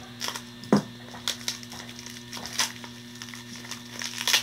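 Plastic bubble wrap crinkling and crackling in irregular bursts as it is cut and pulled open by hand, with one sharp tap just under a second in.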